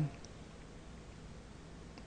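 Quiet room tone in a lecture recording: a faint steady low hum and hiss, with the last of a spoken word trailing off at the very start.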